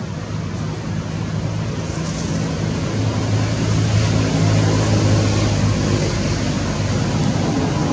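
Motor vehicle engine running with a steady low hum that grows louder about three seconds in, over a steady hiss.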